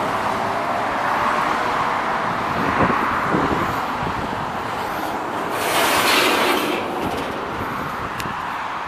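Road traffic going by, a steady wash of passing vehicles that swells as one goes past about six seconds in.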